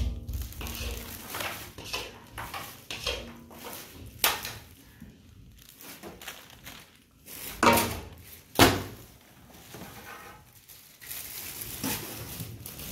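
Plastic bags rustling and crinkling as halwa tins are handled and set down on a steel worktable, with several sharp knocks, the two loudest a little after halfway.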